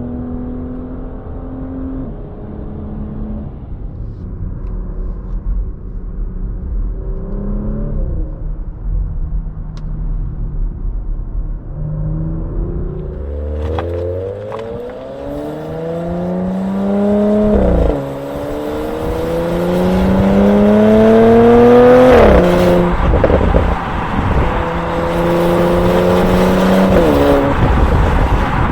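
Porsche Macan Turbo's twin-turbo V6 running at low revs, with one brief rev, then accelerating hard from about halfway through. The engine note climbs in pitch and drops sharply at each of three upshifts near the end.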